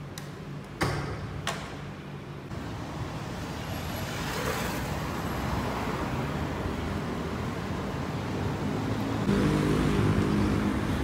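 A few sharp clicks in the first second and a half, then city road traffic swelling in as cars pass close by, with a low steady engine tone joining near the end.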